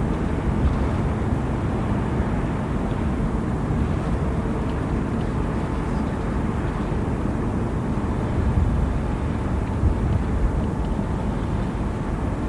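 Steady low rumbling outdoor noise in heavy rain, with no separate event standing out.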